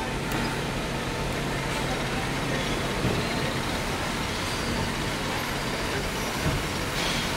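Drill press running steadily as its bit drills into a metal part held in a drilling jig under coolant flow, a low even hum with a light knock about three seconds in and again near the end.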